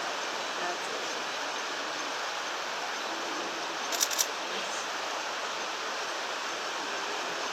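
Steady rushing background noise, with three quick sharp clicks close together about four seconds in.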